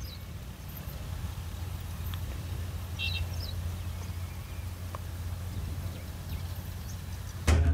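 Open-field ambience: a steady low rumble of wind on the microphone, with one short high chirp about three seconds in. Music starts abruptly at the very end.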